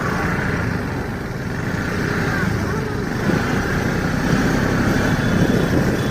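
A vehicle running with steady engine and road noise, and faint voices in the background.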